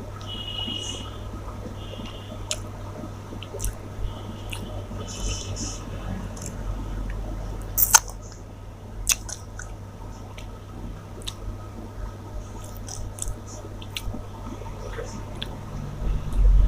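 A person eating rice and chicken curry: wet squishing and chewing with scattered small clicks, one sharp click about eight seconds in, over a steady low hum.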